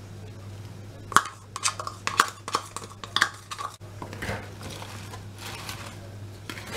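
Metal fork clicking and scraping against a salad bowl while tossing dressed lettuce: a quick run of sharp clicks, then softer rustling of the leaves.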